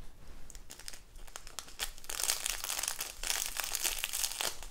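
Small plastic sachet crinkling as it is squeezed and shaken to tip confetti into a plastic cup: a few light ticks at first, then denser crinkling from about two seconds in.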